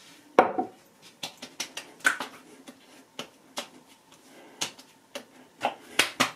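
Palms patting and slapping aftershave onto freshly shaved face and neck: a dozen or so sharp, irregular slaps, with a quick cluster near the end.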